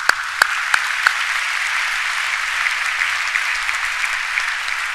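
Large audience applauding steadily, with a few sharp individual claps standing out in the first second.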